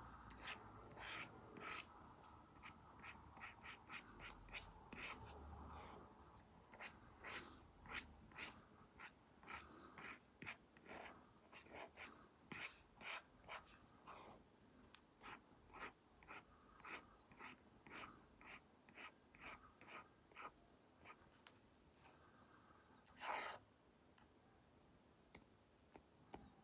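Apple Pencil Pro tip scratching and tapping across an iPad fitted with a paper-like matte screen protector, in short quick strokes about one to two a second. One louder, longer stroke comes near the end.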